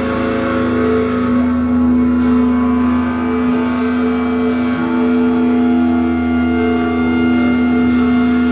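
Live noise rock: distorted electric guitars holding a loud, steady drone of sustained tones, with no clear beat.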